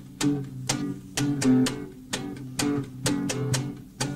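Guitar playing an instrumental: plucked chords over bass notes in a steady rhythm, about two strokes a second.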